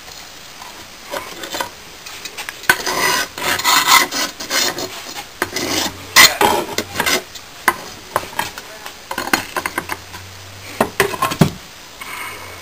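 Steel tongs scraping and clinking against a freshly poured, still-hot aluminum casting and its metal flask while the casting is dug out of the molding sand, with sand rasping and spilling and a sharp knock near the end.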